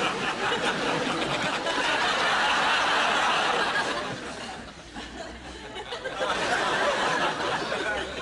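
A group of people laughing and snickering. The laughter swells about two seconds in, dies down, then rises again around six seconds in.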